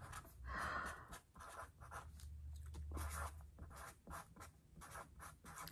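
Felt-tip marker writing on paper: a run of short, faint scratchy strokes that start and stop letter by letter.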